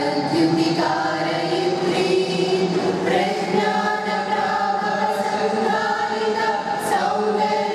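A mixed group of young women and men singing together as a choir into microphones, holding long notes.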